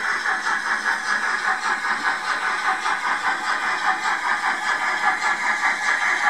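H0-scale model steam locomotive of class BR 85 chuffing as it runs, the steam beat played through its small onboard speaker as a steady, quick rhythm of hissy exhaust beats.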